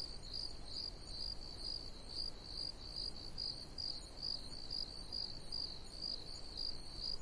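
Crickets chirping: a steady run of high-pitched chirps repeating evenly, about three a second.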